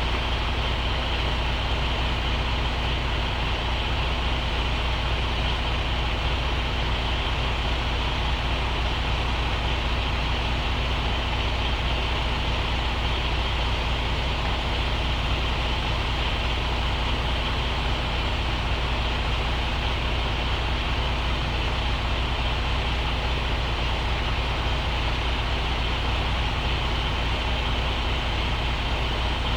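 Diesel truck engine running steadily, a constant low rumble with a steady hum and no change in speed.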